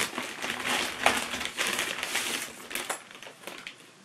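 Thin plastic carrier bag rustling and crinkling as a hand rummages inside it and pulls an item out. The rustle dies down about three seconds in.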